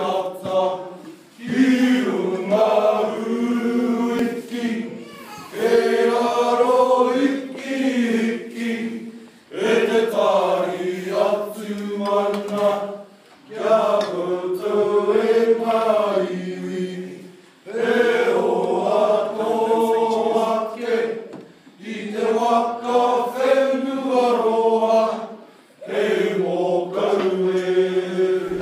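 Slow chant sung by several voices in harmony, in about seven phrases of three to four seconds each, with short breaths between them.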